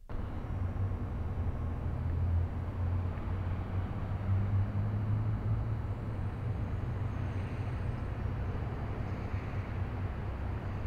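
Steady outdoor city ambience: a continuous low rumble and hum with a light hiss above it, cutting in suddenly at the start.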